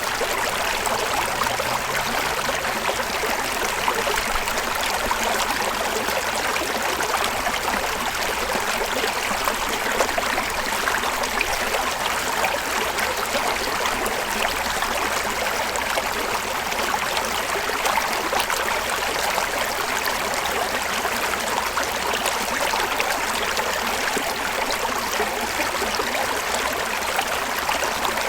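River water flowing steadily over rocks, a continuous rushing, babbling wash with fine splashing texture.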